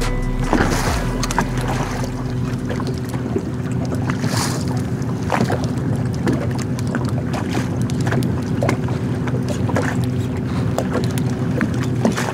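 Small fishing boat on a choppy lake: water lapping against the hull and wind on the microphone, over a steady low hum, with scattered small clicks and knocks.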